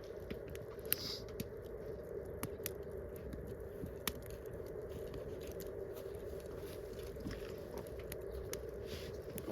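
Wood campfire crackling, with scattered sharp pops (the loudest about a second in and about four seconds in), over a steady hum.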